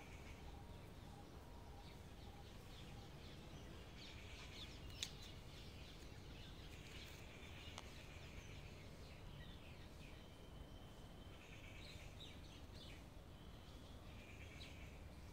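Faint chirping of small birds on and off over a low steady rumble, with one sharp click about five seconds in.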